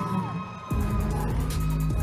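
Electronic performance music with a heavy bass beat. The bass drops out briefly at the start under a falling tone, then comes back about two-thirds of a second in.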